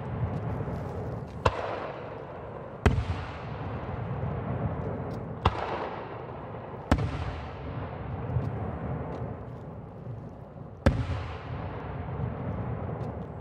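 Japanese aerial firework shells bursting: five sharp booms spaced irregularly a few seconds apart, each followed by a rolling rumble that dies away.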